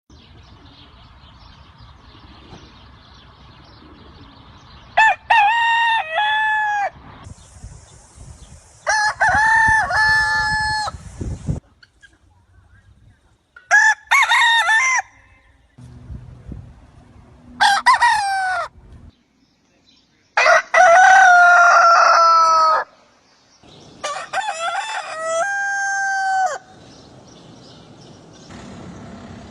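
Roosters crowing, about six cock-a-doodle-doos one after another, each lasting one to two and a half seconds with a few seconds' gap between them. The crows come from separate recordings, so the background noise changes between them.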